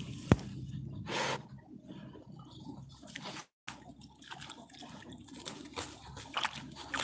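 Dogs sniffing and snuffling hard into a field-mouse burrow, with dry straw and soil rustling and scratching under their noses and paws. A single sharp knock comes a fraction of a second in, and the sound cuts out for a moment near the middle.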